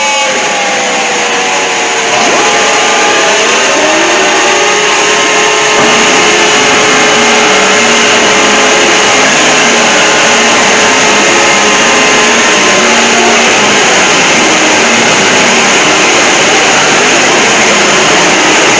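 Mock Emergency Alert System alarm edited to be extremely loud and distorted: a harsh wall of noise with steady alarm tones buried in it, and falling pitch glides in the first few seconds. It steps up in loudness about two seconds in and again about six seconds in.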